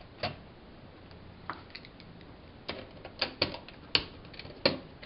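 Irregular small clicks and taps of fingers handling thermostat wires and the plastic terminal base of an old wall thermostat, about eight in all, the sharpest in the second half.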